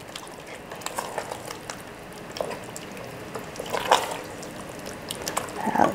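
Thick tomato-and-cheese ravioli sauce with spinach in an Instant Pot's inner pot, on the sauté setting: scattered wet plops and squelches, a few louder ones around two and four seconds in.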